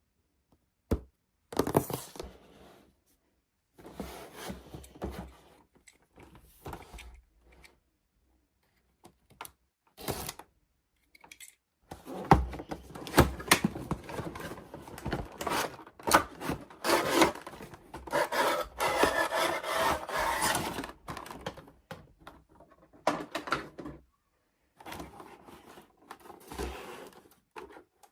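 Hands handling toy packaging and toys: irregular scraping and rubbing with sharp clicks and knocks, coming in spells with short pauses between them.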